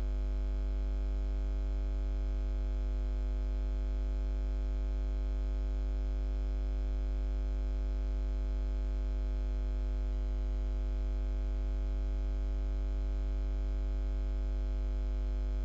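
Steady, unchanging electrical hum with a strong low buzz and a few fainter higher overtones.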